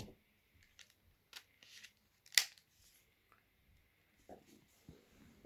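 Quiet plastic clicks and handling of an old Alcatel BC2 mobile phone, with one sharper click about two seconds in as a part snaps into place.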